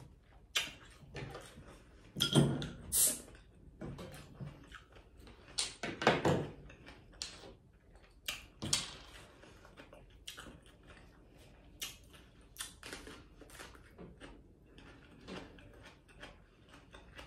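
Close-miked eating sounds: scattered mouth smacks, small clicks and rustles of food and a paper napkin being handled at the table, with louder bursts about two and six seconds in.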